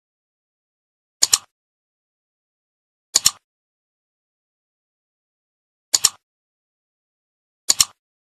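Four mouse-click sound effects, each a quick double click, spaced about two to three seconds apart with total silence between them. They are the clicks of an animated cursor pressing like, share, subscribe and notification-bell buttons.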